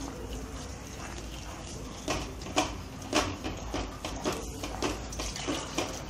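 Wooden spatula stirring a thin, milky dal halwa in an aluminium kadai, scraping and knocking against the pan's metal sides. The knocks grow more frequent from about two seconds in.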